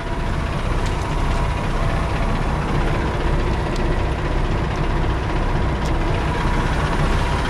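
Diesel engine of a 2018 Freightliner semi truck running steadily as the truck is put in reverse against drive-axle brakes frozen in the cold, with a faint steady whine over the engine.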